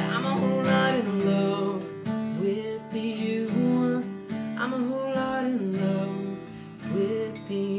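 Acoustic guitar strumming chords in a slow country song's closing bars, with some notes held and bent.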